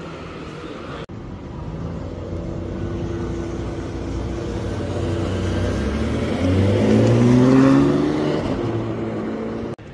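Ferrari 599 GTB's V12 pulling away and accelerating, engine note building steadily and then climbing sharply in pitch, loudest about three-quarters of the way through before easing off. Preceded by about a second of street noise.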